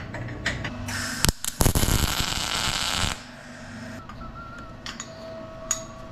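Steel parts clinking and knocking as a shock-mount plate is set in place, with one sharp knock about a second in. Then comes a welder's tack: a loud crackling hiss lasting about a second and a half.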